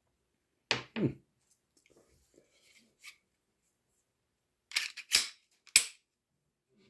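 Slide of a Stoeger STR-9S Combat pistol racked by hand, with metal-on-metal clacks and snaps. There are two sharp clacks about a second in, a few small clicks, then three quick clacks about five to six seconds in as the slide is pulled back and let fly forward.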